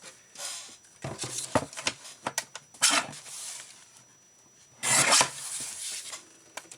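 Paper being cut straight across: a series of scraping cutting strokes with small clicks, the loudest stroke about five seconds in.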